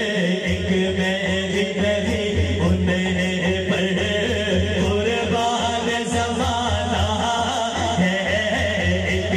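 A male voice sings a naat, an Urdu devotional poem, in long wavering melodic phrases through a PA system, over a steady low drone.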